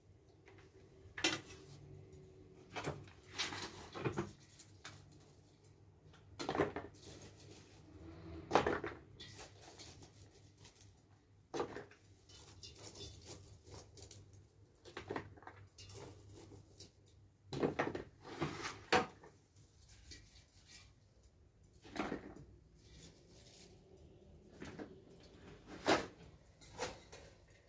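Chopped vegetables being packed by hand from metal bowls into a large plastic jug for pickling: irregular knocks and clatters as pieces drop in and the bowls and jug are handled, every second or two.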